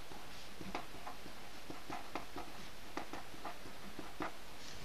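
Pen writing on paper: a string of short, irregular strokes as a line of words is handwritten, over a steady background hiss.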